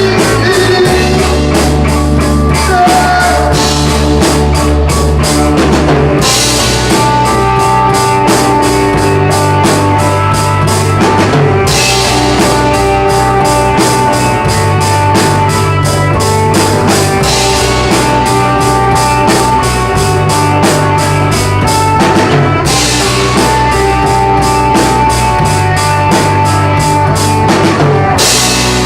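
Rock music played on drum kit, guitar and bass: a steady, fast drum beat under sustained bass notes, with cymbal crashes at several points.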